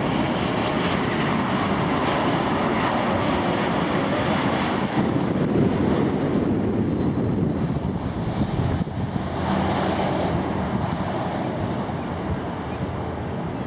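Boeing 737-800's twin CFM56 turbofan engines roaring in a low flypast. The roar is loud and steady, and its hiss thins a little past the midpoint as the jet banks away.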